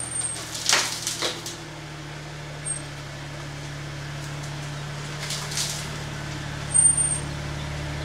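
A steady low machine hum that grows stronger about a second and a half in, with two short hissing noises and a few brief high-pitched chirps, the loudest near the end.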